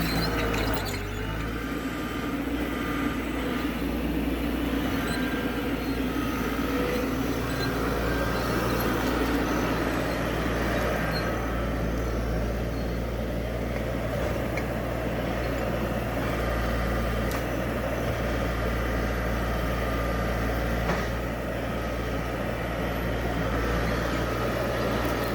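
Skid steer on steel-grouser over-the-tire tracks, its engine running steadily as the machine works.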